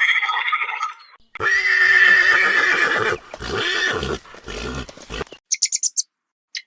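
Horse neighing: a loud, long whinny begins about a second and a half in, followed by a few shorter calls. A different animal call ends just before it, and brief high chirps come near the end.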